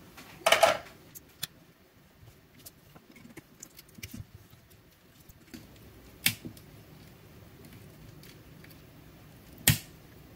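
Small clicks and clatters of pliers working at the nickel strips and plastic case of a lithium-ion battery pack, with a louder clatter about half a second in and two sharp clicks, one past the middle and one near the end.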